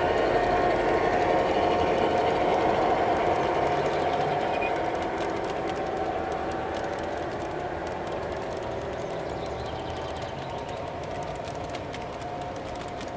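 G-scale model diesel freight train running past on garden track: a steady motor-and-wheel hum with a few tones in it that fades as the locomotives move off, leaving faint clicking from the freight cars' wheels on the rails.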